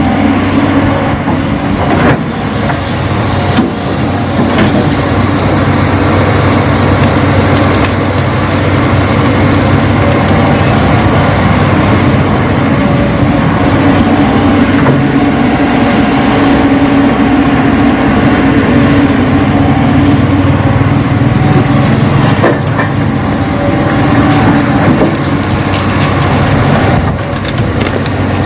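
Radio-controlled model construction machines at work: a steady, loud engine-like drone with a few short clicks.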